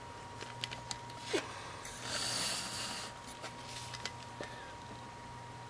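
A breath near the microphone for about a second, a couple of seconds in, among faint clicks and rubs from handling a small die-cast toy monster truck, over a low steady hum with a thin high tone.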